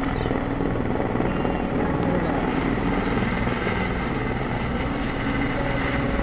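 Helicopter running close by: a steady, rapid rotor beat under a constant engine tone.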